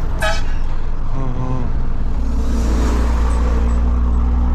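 Truck diesel engine with a straight-through exhaust running under way, a steady low drone heard from the cab. A couple of brief higher-pitched sounds come near the start and about a second in.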